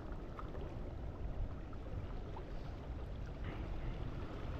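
Steady, rough rumble of wind on the microphone mixed with the wash of the sea along the rocky shore.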